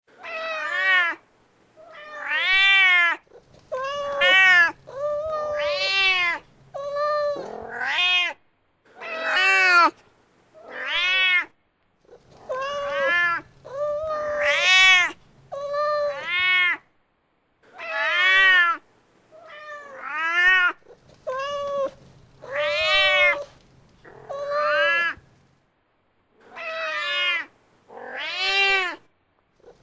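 A mother cat meowing again and again, calling for her kitten: about twenty meows, each rising and then falling in pitch, with short pauses between them.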